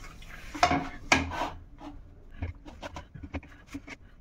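Boiled potatoes being mashed by hand: scraping and rubbing sounds, then irregular light knocks and clicks of kitchenware.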